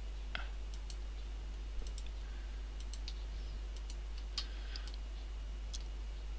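Computer mouse button clicking, a dozen or so short, irregularly spaced clicks as objects are selected one by one, over a low steady hum.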